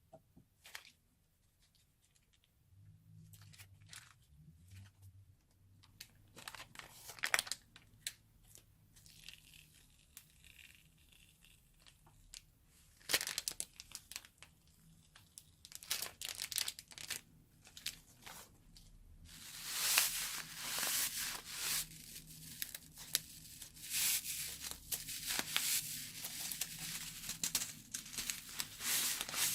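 Slime being piped and handled, crackling and popping with sharp sticky clicks. The clicks are sparse at first and turn into a dense, louder crackle about two-thirds of the way in.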